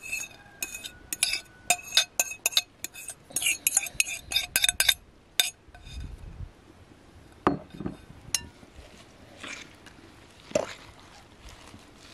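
Metal fork clinking against a glass mixing bowl while mixing beaten eggs into chopped greens. The first five seconds are a quick run of ringing taps, followed by a few scattered knocks and softer stirring.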